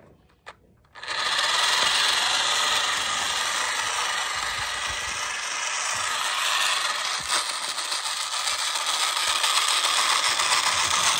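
Battery-powered toy train running on plastic track, its small motor whirring and the wheels and coaches rattling, starting about a second in after a few light clicks as it is set on the rails.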